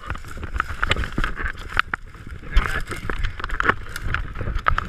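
Dry brush and twigs crackling and snapping in quick irregular clicks as a person reaches and pushes through the branches, with a low rumble of rubbing close to the microphone.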